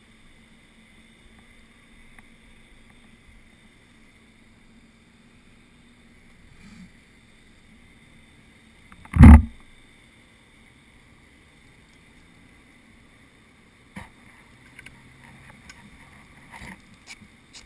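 Quiet, steady rainy background at a fuel pump with a faint hum, broken about nine seconds in by one very loud, short thump on the helmet camera. A few light clicks and knocks follow near the end as the motorcycle's fuel cap is handled.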